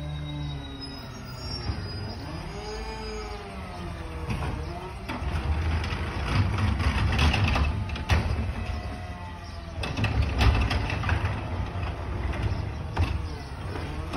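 McNeilus ZR garbage truck's engine running and revving, with a whine that rises and falls several times and a few sharp metal clanks.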